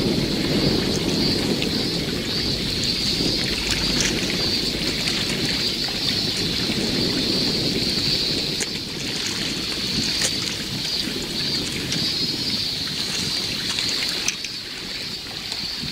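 Wind blowing across the microphone with small waves washing against a rocky shoreline, a steady rushing noise. Over it runs a constant high-pitched drone.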